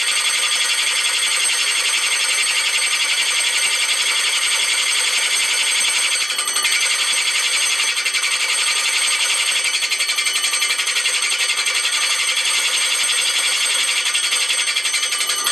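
A 3 3/8-inch hole saw in a drill press cutting quarter-inch cast iron plate at slow speed: a steady, loud, high ringing screech with a fast chatter from the teeth, which dips briefly about six seconds in. The chatter comes from an interrupted cut, the teeth striking the rough high spots of the cast iron surface.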